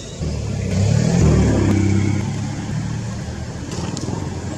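A motor vehicle's engine passing close by: a low hum that swells to its loudest a second or so in, then slowly fades.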